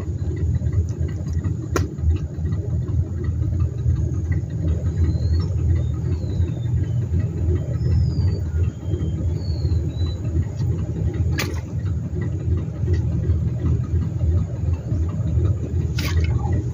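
Steady low rumble throughout, with a few faint bird chirps in the middle and three sharp clicks, the last one near the end.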